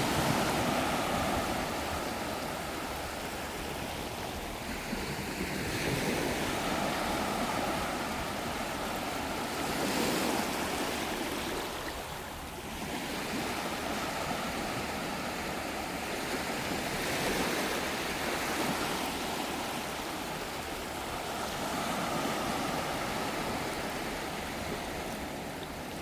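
Sea surf breaking on a beach: a steady wash of waves that swells and falls back every few seconds, with a brief lull about halfway through.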